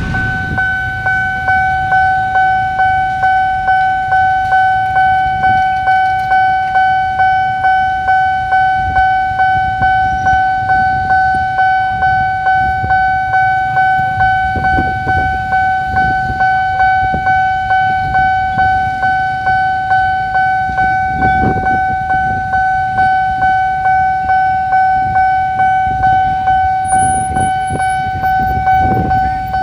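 Railway level-crossing warning alarm sounding from the loudspeaker on the crossing post: a loud, steady electronic tone pulsing in a quick, regular rhythm, the signal that a train is approaching and the barrier is down. Road traffic rumbles underneath.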